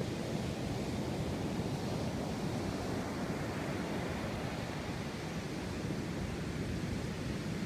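Steady rushing noise of ocean surf, mixed with wind buffeting the microphone.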